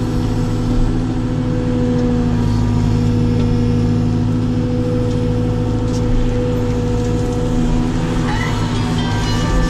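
Caterpillar 432F2 backhoe loader's diesel engine running steadily at a constant speed, heard from inside the cab while the backhoe arm is worked.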